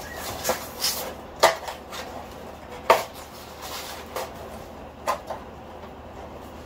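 Duo roller blind's headrail being handled and fitted at its wall brackets: a handful of irregular plastic-and-metal clicks and knocks, the loudest about a second and a half in and again near three seconds.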